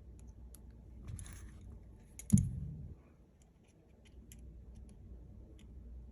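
Light clicks and taps of small tools and smartphone parts being handled during reassembly, with one sharper, louder knock a little over two seconds in.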